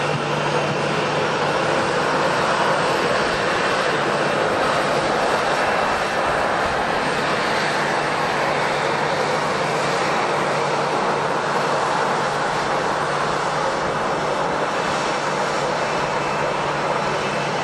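Jet airliner engines running: a steady rush of engine noise with a low hum and a faint thin high whine.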